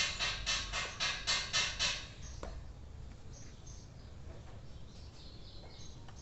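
A rhythmic scratchy noise, about three to four strokes a second, that stops about two seconds in, followed by faint high bird chirps.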